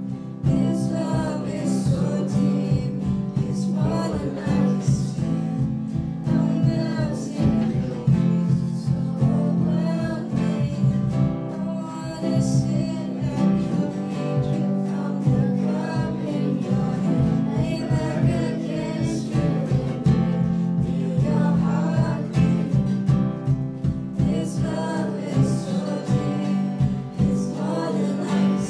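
A live worship band playing a song: strummed acoustic guitar and a drum kit, with a woman singing.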